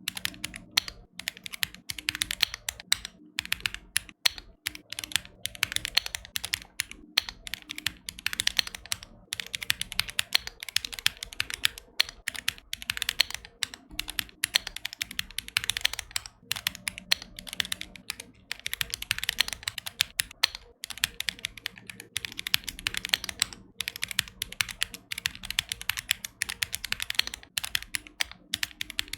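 Fast, continuous typing on a mechanical keyboard: a dense stream of key strokes with a few short pauses.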